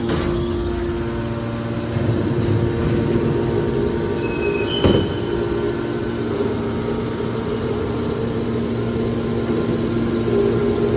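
Metal baler machinery running with a steady hum, and a single sharp metal knock about five seconds in, just after two brief high squeaks.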